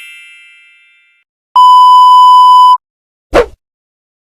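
Sound-effect sequence: a bell-like ding fades out, then a loud steady censor-style bleep, one pure tone lasting just over a second. A short sharp hit follows near the end.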